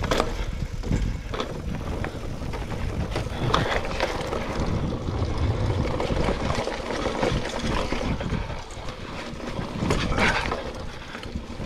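Mountain bike rolling over dirt singletrack: constant tyre and drivetrain rumble with the bike rattling and knocking over bumps, the sharpest knocks about three and a half and ten seconds in.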